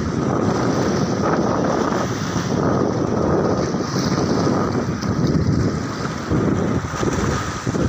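Strong wind buffeting the microphone, over the wash of choppy river water.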